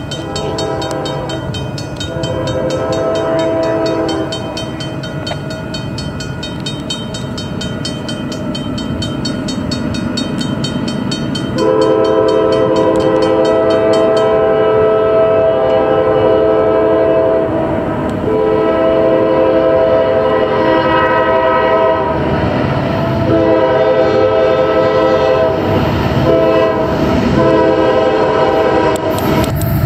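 Norfolk Southern diesel freight locomotive approaching and sounding its multi-chime air horn: one blast, then after a pause a run of long blasts with short breaks for the grade crossing. A crossing-signal bell rings rapidly through the first half, and the train's rumble rises as it nears.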